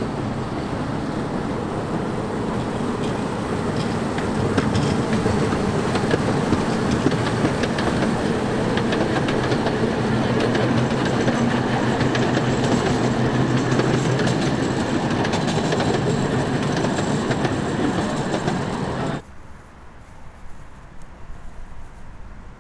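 A 15-inch-gauge park railway train running along its track, the steady rumble of the locomotive and coaches with the wheels rattling on the rails. The sound cuts off suddenly near the end, leaving only a faint background.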